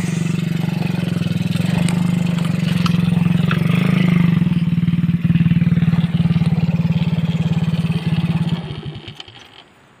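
Small underbone motorcycle engine running steadily, then dying away near the end, its firing slowing until it stops.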